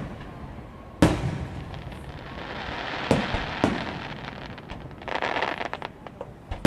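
Aerial fireworks shells bursting overhead: a loud boom about a second in, two more bangs around three seconds, and a quick run of small crackling pops near the end.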